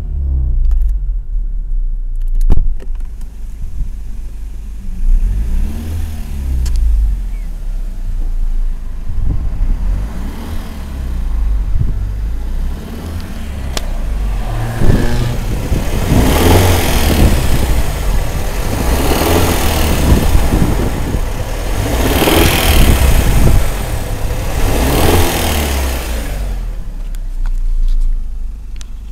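BMW E46's N42B20 2.0-litre four-cylinder engine running with its pitch rising and falling as it is revved, with four louder rushing surges in the second half. This is the car with a strange noise coming from underneath it.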